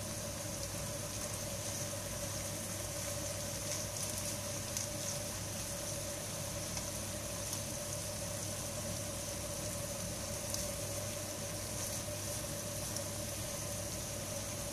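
Sliced beef and onions sizzling and simmering in a pan, with a few soft scrapes of a wooden spatula and a steady hum underneath.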